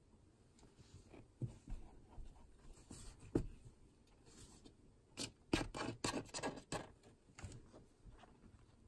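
Kittens' paws and claws scuffling and scratching on the carpet and cardboard of a box as they bat at a plush toy. Faint scattered taps and scrapes, with one sharper knock, then a run of rapid scratching about five to seven seconds in.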